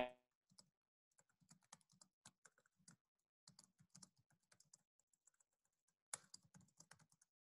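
Very faint, irregular clicking of typing on a computer keyboard, with a short quick flurry of keystrokes about six seconds in.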